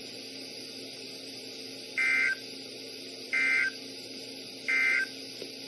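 NOAA Weather Radio SAME end-of-message data bursts: three short, identical digital bursts about 1.3 seconds apart, signalling the end of the broadcast message. A steady radio hiss and hum runs underneath.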